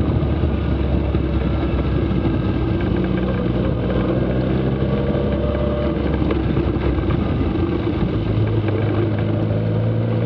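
Open kit car's engine running steadily on the move, with wind and road noise around it; the engine note shifts about eight seconds in.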